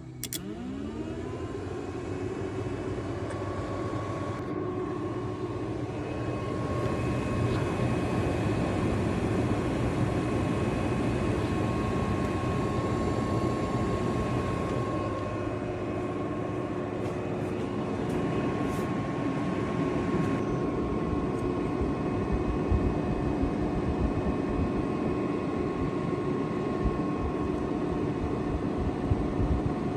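Electric radiator cooling fan on a truck, run straight off the battery with its control wire touched to ground. It spins up right at the start, then runs steadily with a steady whine over the rush of air.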